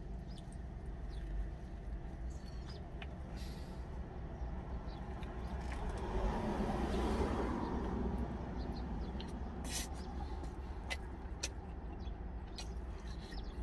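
A low, steady rumble with a road vehicle passing by about six to eight seconds in, swelling and fading. Now and then a sharp click of a spoon against a stainless steel pot.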